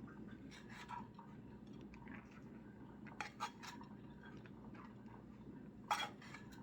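A few light clinks and knocks of dishes and utensils, the sharpest one near the end, over a low steady hum.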